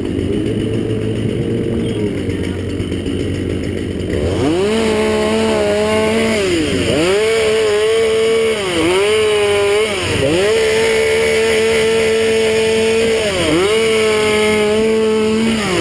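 Chainsaw engine idling for about four seconds, then revved up to high speed and held there, its pitch dipping briefly about four times before it drops off near the end.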